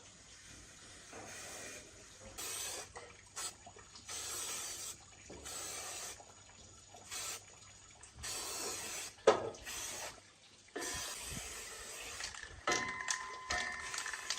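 Short bursts of hissing spray, starting and stopping over and over, with a sharp click about nine seconds in and a steady ringing tone near the end.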